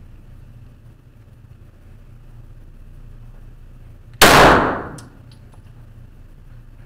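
A single shot from a Smith & Wesson semi-automatic pistol about four seconds in: a sharp report with a short reverberant tail dying away in the enclosed indoor range, followed by a few faint clicks.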